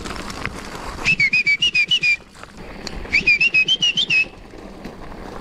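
Mountain bike disc brakes squealing in two bursts of about a second each while descending a rocky trail, a high, rapidly pulsing squeal that wavers in pitch, over the rattle of the bike on stones.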